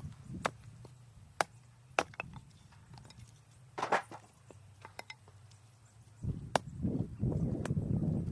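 Firewood knocking: sharp single wooden cracks a second or so apart, then a longer rumbling clatter of wood in the last two seconds.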